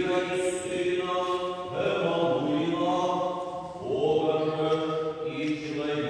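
Orthodox liturgical chant sung in long held notes that change pitch every two seconds or so.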